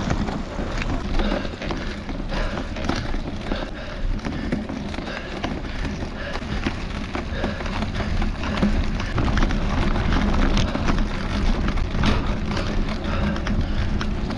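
Mountain bike tyres rolling and crunching over a gravel and dirt trail, with the bike rattling over bumps: a steady noisy rush full of small clicks and knocks, with a low rumble of wind on the bike-mounted camera's microphone.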